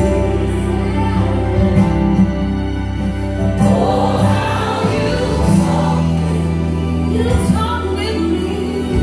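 Gospel song playing, a choir singing over sustained low chords.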